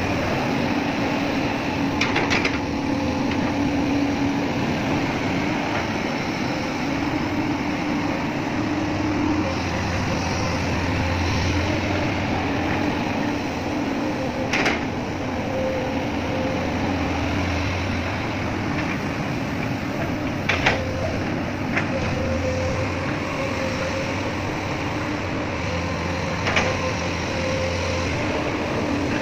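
Magnetic excavator's engine running steadily with a constant hum, broken by a few short sharp clanks.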